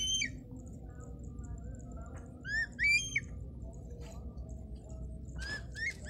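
Hawk giving shrill, arching call notes: one at the start, a pair about halfway through and another pair near the end, over a steady low rumble.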